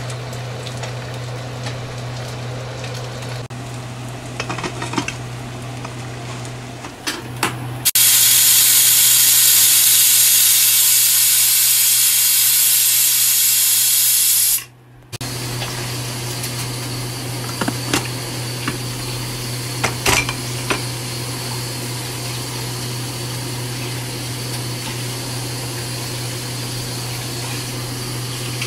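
Pressure cooker whistle venting: a loud steam hiss lasting about six seconds that cuts off suddenly. Before and after it, cooking sounds over a steady low hum with scattered clicks, starting with black rice boiling in the open pot.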